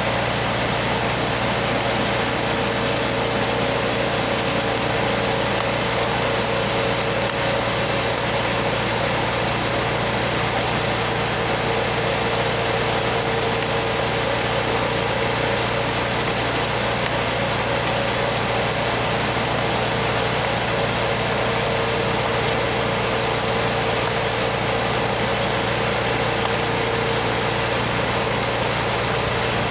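LASKI F500H stump grinder's engine running steadily while the machine stands parked, not cutting.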